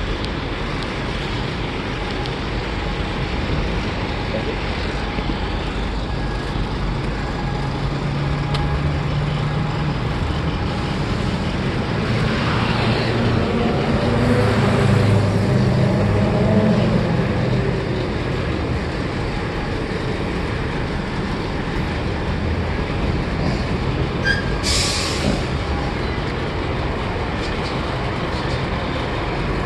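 Road traffic of heavy container trucks: a truck's diesel engine passes, loudest about halfway through, and near the end a short hiss of air brakes.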